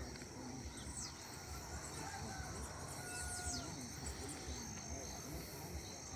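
Faint outdoor ambience: a low, steady rush of water from a small waterfall under scattered short bird chirps and a steady high insect trill.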